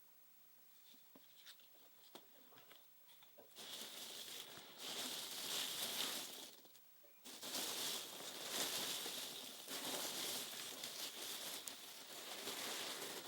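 Close-up rustling and crinkling of handled material, starting about three and a half seconds in after a few faint clicks, with a short break about halfway through.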